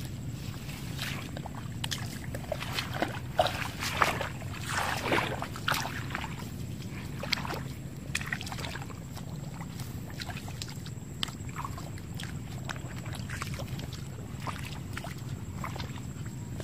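Shallow muddy water splashing and sloshing under bare feet wading through it, in irregular bursts that are busiest in the first half, over a steady low hum.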